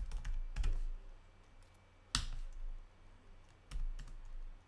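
Computer keyboard typing: a quick run of keystrokes in the first second, one loud key press about two seconds in, then two more key presses near the end, as a terminal command is typed and entered and a prompt is answered.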